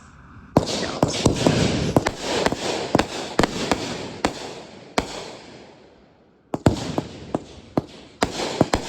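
Consumer fireworks going off: a dense crackling barrage with many sharp bangs starts about half a second in and dies away over several seconds. A second round starts near the two-thirds mark and a third just before the end.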